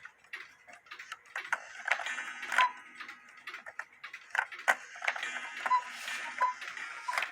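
Handmade working cuckoo clock ticking, with sharp clicks at uneven spacing.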